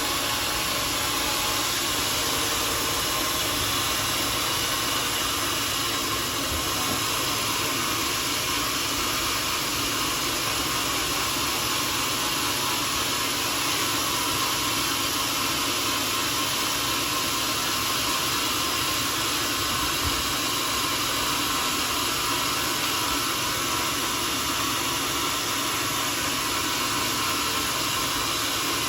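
Homemade sawmill running at a steady level, an even mechanical noise without breaks, as the saw works through a mahogany log.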